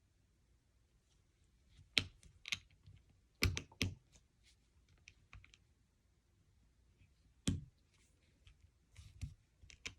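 Lego plastic pieces being handled and pressed together: scattered sharp clicks, a cluster about two to four seconds in and another about seven and a half seconds in.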